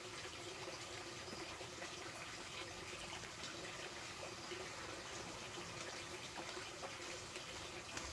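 Steady running water.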